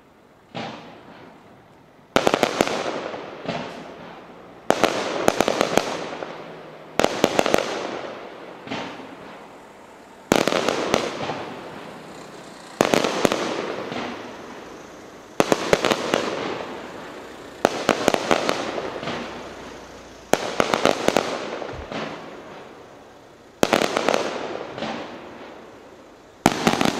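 Aerial firework shells bursting one after another, about a dozen in all, every two to three seconds; each sudden bang is followed by a spray of crackling that fades away.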